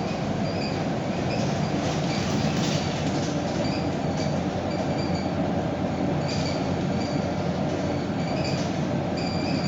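Cabin running sound of a 2009 Scania K230UB Euro 5 city bus and its five-cylinder diesel: a steady engine and road rumble heard from inside the bus. A faint high beep repeats about twice a second throughout, with a few brief rattles.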